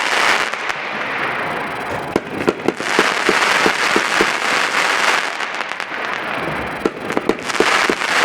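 A 500-gram, 56-shot consumer firework cake (Brothers Pyrotechnics 'Heavy Rain') firing. A dense, steady crackle runs over a quick run of pops, about three to four a second.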